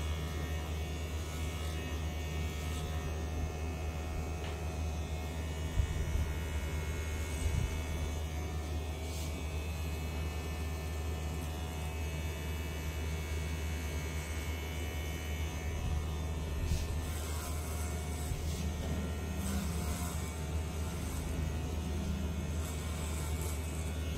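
Kubra electric hair clipper running with a steady buzzing hum as it cuts short grey hair at the side and back of the head. A couple of brief knocks come about six and seven and a half seconds in.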